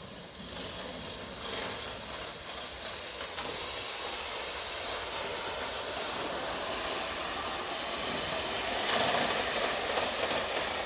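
Aster JNR C57 live-steam model locomotive and its coaches running on the track, getting steadily louder as the train approaches and loudest as it passes close about nine seconds in.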